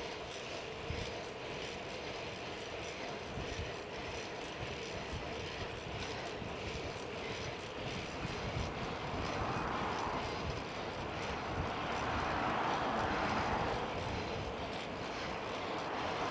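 Steady rush of wind and tyre noise from riding a bicycle along a city street, with a faint steady hum underneath. The noise swells louder twice in the second half.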